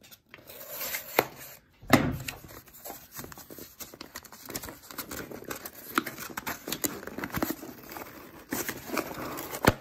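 A folding knife blade slitting the packing tape of a cardboard shipping box, then the box being torn and pulled open, with crinkling and scraping and a few sharp knocks.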